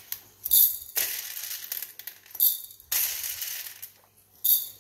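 Freshly roasted coffee beans scooped with a metal spoon from a stainless steel tray and tipped into a glass jar: scraping and clattering of beans on metal and glass, in about three spoonfuls roughly two seconds apart.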